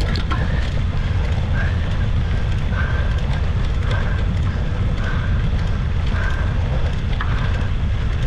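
Wind buffeting the microphone: a steady low rumble throughout. A faint short high tone repeats about once a second over it, with a single click near the end.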